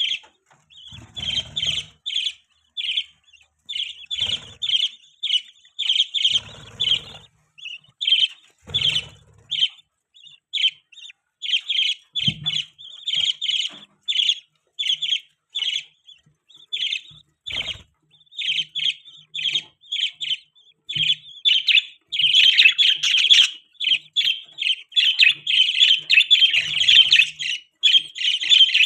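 Budgerigars chirping in quick, short, high calls that grow into dense, nearly unbroken chatter in the last several seconds.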